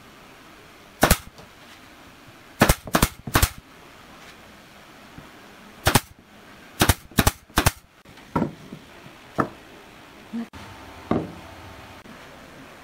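Pneumatic nail gun firing nails into a pine board: about eight sharp shots in quick little groups, followed by a few softer knocks near the end.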